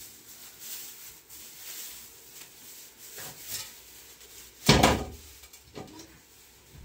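A loud thump a little under five seconds in, with quieter knocks and rustles around it.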